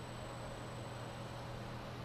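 Room tone: a steady low hum under an even hiss, with no distinct sounds.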